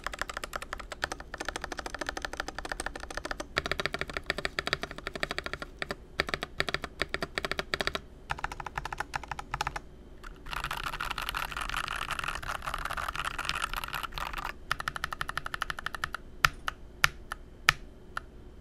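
Typing on a Tecware Veil87 tenkeyless mechanical keyboard with its stock pre-lubed Pearl Purple light tactile switches: fast runs of keystrokes, with a handful of louder single strokes near the end.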